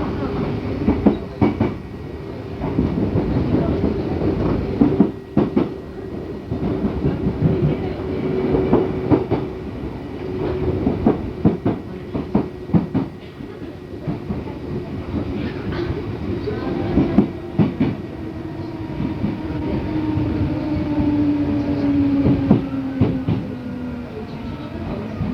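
Running sound inside an Odakyu 8000 series electric train car: a steady rumble with wheels clicking over rail joints. A whine runs underneath and sinks slowly in pitch near the end.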